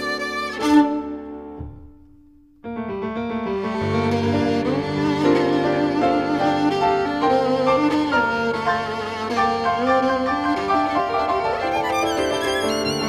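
Improvised violin and piano duet, the violin playing wavering, vibrato notes over the piano. About two seconds in the music dies away to a brief near-silent pause, then starts again abruptly and carries on.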